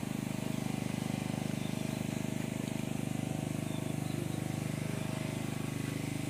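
A small engine running steadily, a constant low drone with a fast, even pulse.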